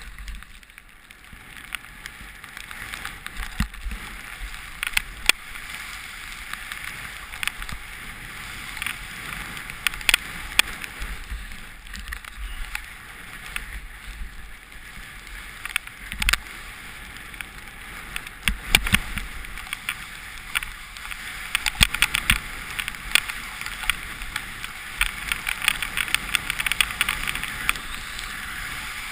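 Snowboard riding through deep powder snow: a steady hiss of the board running through the snow, with frequent sharp clicks and knocks that grow thicker in the last third, over a low rumble.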